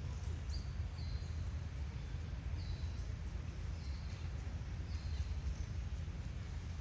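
About five short, high chirps, each falling slightly in pitch, spaced irregularly over a steady low rumble.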